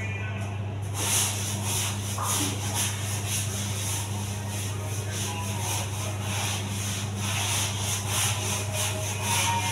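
Hand scrubbing of a ceramic tile floor to lift cement and paint stains: quick, even scrubbing strokes starting about a second in, over a steady low hum.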